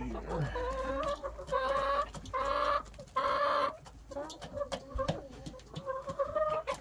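Domestic hens clucking and calling, with several drawn-out calls in the middle that are the loudest part.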